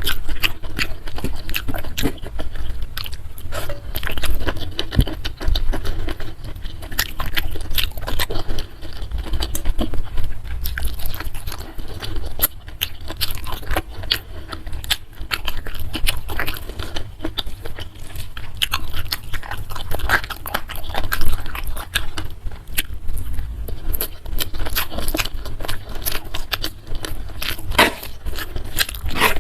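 Close-miked chewing and crunching of food, with many quick crisp clicks and mouth sounds running on irregularly.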